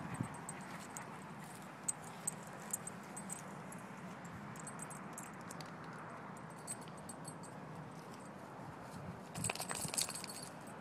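Metal tags on a dog's collar jingling as the dog moves about: a few small separate clinks in the first few seconds and a longer, denser jingle near the end, over a faint steady outdoor background.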